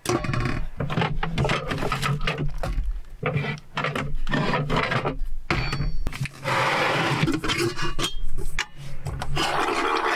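Handling noise of a stainless steel kettle and a ceramic mug being picked up and set down on a wooden countertop: a busy run of knocks, clicks, rubbing and scraping.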